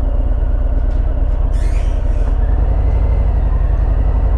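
Harley-Davidson Fat Bob's Milwaukee-Eight 107 V-twin running at low riding speed, picking up a little about two and a half seconds in. A short hiss comes about a second and a half in.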